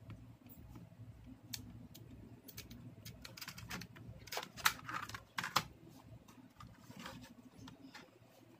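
Light plastic clicks and taps from the buttons of an LG wired AC remote controller being pressed and the controller being handled, with a run of sharper clicks around the middle.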